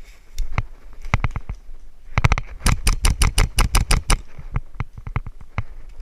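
Airsoft guns firing: a few scattered single shots, then a quick string of about a dozen shots at roughly seven a second near the middle, then scattered shots again.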